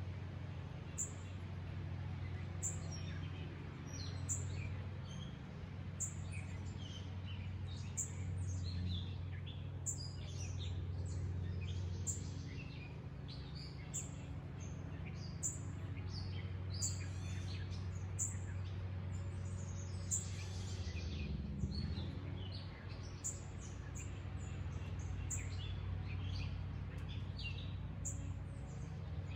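Wild birds chirping and calling outdoors, with short high notes repeating throughout, over a steady low hum of background noise.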